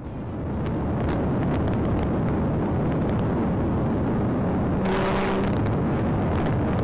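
A police cruiser at high speed, heard from its dashcam: a steady, loud rumble of engine, tyres and wind. Near five seconds in, a brief steady tone comes in with a burst of brighter hiss.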